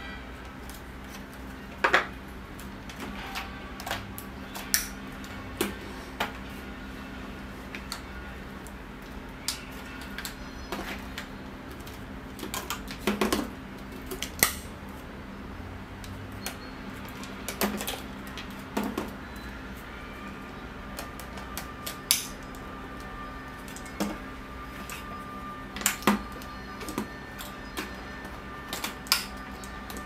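Hard plastic parts of a Honiture H9 cordless stick vacuum knocking and clicking as they are handled and fitted together: the extension tube going into the handheld unit and the floor brush onto the tube. The clicks and knocks are scattered and irregular, a few especially sharp ones about two seconds in, in a cluster around the middle, and near the end.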